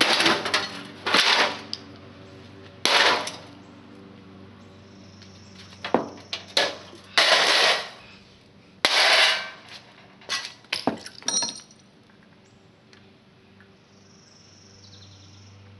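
Hammer blows and clattering metal as the sheet-metal parts of a heater are smashed on concrete: a run of about eight sharp crashes and rattling clatters, some in quick bunches, dying away over the last few seconds.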